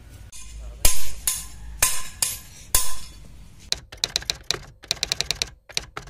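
A hammer strikes metal in horseshoeing. About five loud, ringing blows come about a second apart. From the middle on there are quick runs of light, rapid hammer taps.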